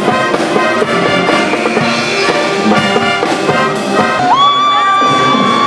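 Brass music playing with a brisk, rhythmic beat. About four seconds in, a high note swoops up and is held.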